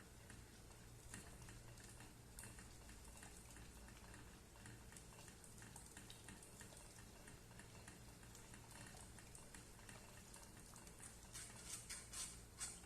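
Near silence: faint scattered clicks and taps of kitchen work over a low steady hum, with a quick run of louder clicks near the end.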